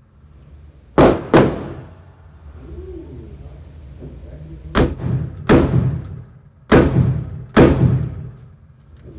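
Six gunshots in three quick pairs, each shot followed by a short fading echo, fired until the gun's magazine is empty.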